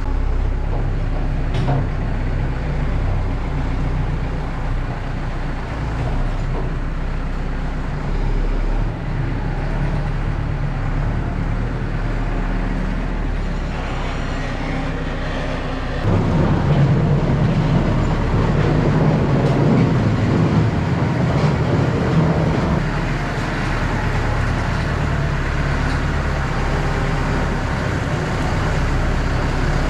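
Tractor engine running steadily while mucking out, working harder and louder from about halfway through.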